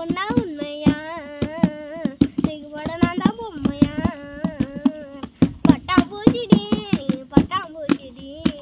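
A child singing a Tamil song, with a quick beat of hand taps drummed along on a hard surface.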